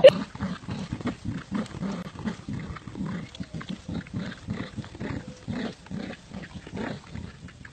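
Dog growling in play while tugging on a toy in a tug-of-war: a steady run of short growls, about four a second.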